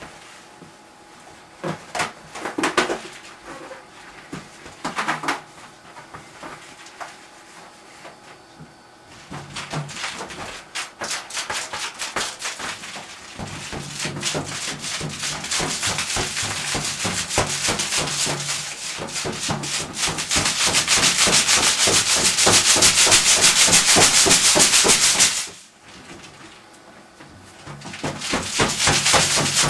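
Hands rubbing rapidly over a big, taut latex punchball, a fast scratchy rhythm. A few separate rubs come first; the rhythm then builds and grows louder, breaks off for a couple of seconds near the end, and starts again.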